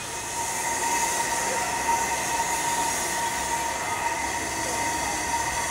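Narrow-gauge steam tank locomotive hissing steam: a steady hiss with a steady high ringing tone running through it.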